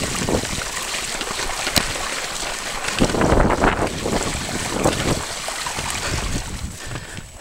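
Mountain bike ridden over a muddy track: wind buffeting the microphone, with the tyres splashing through standing water and rattling over stones. It is loudest about three seconds in, as the bike ploughs through a long puddle, and eases off near the end.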